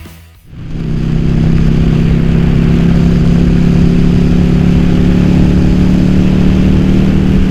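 Yamaha Virago XV750's V-twin engine running at a steady, even pitch, coming in about half a second in.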